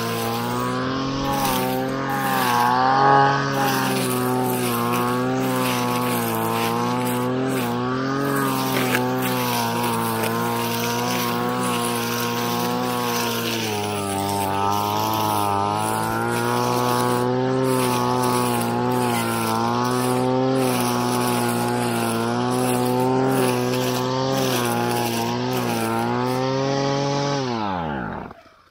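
Engine brush cutter with a metal saw blade running steadily while cutting grass, its pitch wavering up and down with the throttle. Near the end the engine winds down and stops.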